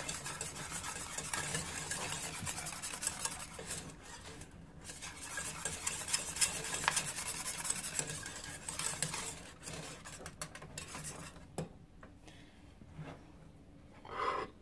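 Metal wire whisk stirring a thick flour-and-milk sauce in a small enamel-lined saucepan: a rapid, continuous scraping rasp against the pan that stops about eleven seconds in.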